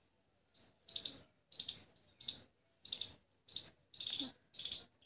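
An insect chirping in short, evenly spaced high-pitched pulses, about one and a half a second.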